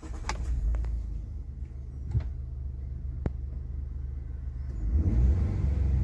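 Ford F-150's 3.5-litre twin-turbo EcoBoost V6, heard from inside the cab, running in park with a low rumble and a few short clicks. About five seconds in it is revved up to around 3,000 rpm and gets louder. The fake engine-sound enhancement through the cab speakers is switched off, so this is the real engine alone.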